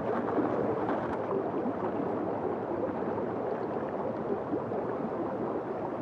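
Mountain stream water gurgling and bubbling steadily.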